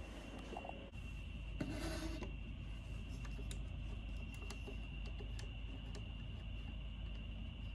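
Handling noise of a hand against a wooden lattice bedside lamp: a short rubbing rasp about two seconds in, then a scatter of light clicks and taps, over a steady faint high whine and low hum.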